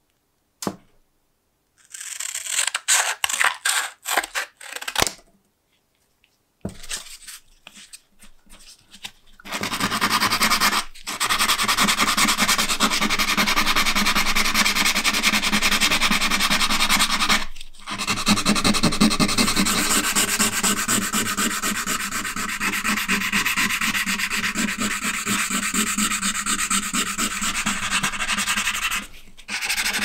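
Hand sanding of a small steel pocket-knife part with a hand-held abrasive: fast back-and-forth scrubbing of grit on metal. It starts as a few separate short strokes, then scrubs continuously from about a third of the way in, with a few brief pauses.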